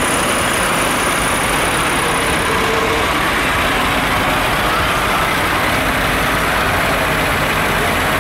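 Diesel engines of a procession of large modern farm tractors, a New Holland T7 and Massey Ferguson models, running at low revs as they drive slowly past one after another. The rumble is steady and loud throughout.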